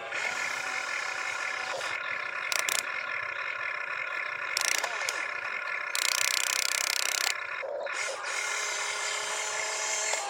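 Small electric motors and gearboxes of radio-controlled construction toys whining steadily. Short bursts of harsher noise come about two and a half and four and a half seconds in, and a longer one from about six to seven seconds.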